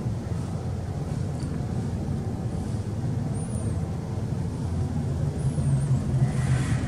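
Steady low background rumble with no speech, and two faint high chirps, one about halfway through and one a little before the end.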